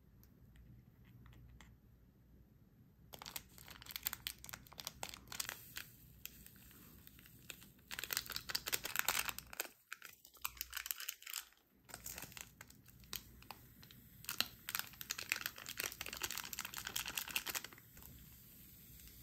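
Foil sachet crinkling and being torn open, a dense crackling in repeated spells from about three seconds in until near the end, broken by a short silent gap around the middle.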